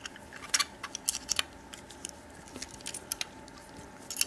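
Irregular light metal clicks and taps as an Allen key is handled against a steel padlock and fitted into the screw that holds its bottom plate.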